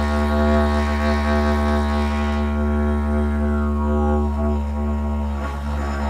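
Didgeridoo playing one steady low drone, the player moving tongue and jaw together so the bright overtones above it shift and change colour. The sound is noted as more powerful with both tongue and jaw working.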